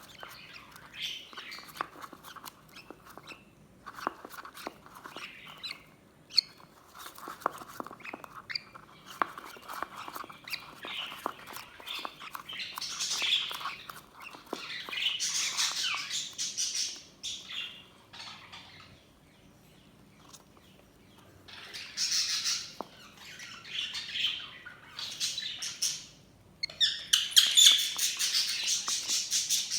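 Budgerigars chirping, warbling and squawking in bursts, with short pauses between bouts and the busiest chattering near the end.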